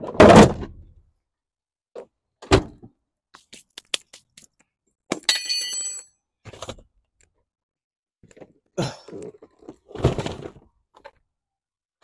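Tyre-change tools at a car wheel: a heavy thunk at the start, another knock about two and a half seconds in, scattered clicks, and a ringing metallic clank of a lug wrench about five seconds in, with scuffing noises near the end.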